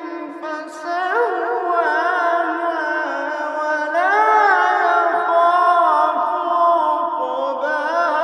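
A solo voice chanting Quranic recitation in long melismatic phrases, its held notes sliding and arching up and down in pitch.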